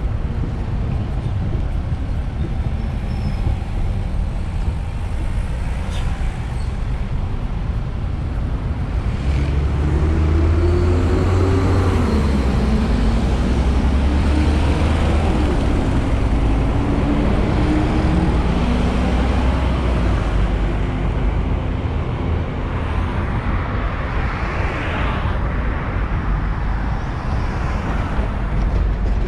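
Road traffic on a city bus corridor, with cars passing. About ten seconds in, a heavy engine joins and runs loudly for roughly twelve seconds, its pitch rising and falling as buses and cars move off, then it blends back into the traffic noise.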